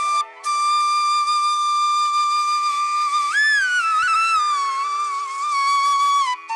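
Bansuri (Indian bamboo flute) music over a steady drone. It plays one long held note that swells upward briefly about halfway through, wavers, and slides down near the end.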